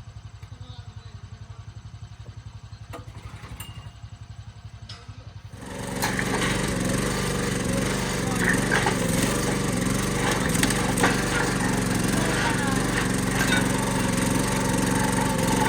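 Small gasoline engine running with a low, even pulse, then abruptly much louder from about six seconds in. A few sharp cracks sound over it.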